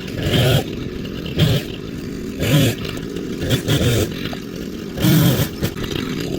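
Chainsaw running, its engine surging louder in short bursts about once a second over a steady lower drone.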